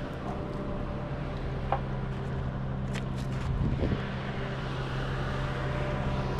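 A vehicle engine running steadily, an even low hum, with a few faint clicks over it.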